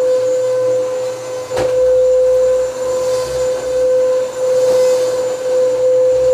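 Vacuum cleaner running with a steady whine, its loudness swelling and dipping. A short knock comes about a second and a half in.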